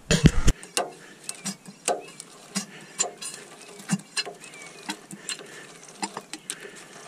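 Hand-operated oil extractor pump being worked on an engine's dipstick tube, drawing old engine oil up and out through a hose into an empty bottle. It gives a string of irregular short clicks and knocks, the loudest right at the start.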